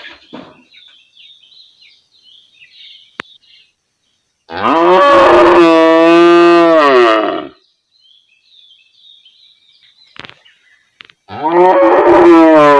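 A cow mooing: two long, loud moos about five seconds apart, the first falling in pitch at its end, the second rising at its start and still going at the end.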